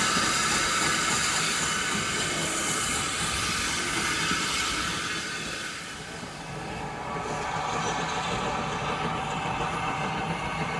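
Small steam tank locomotive hauling a coach: a loud hiss of escaping steam that dies away about halfway through, leaving the quieter running noise of the train on the rails.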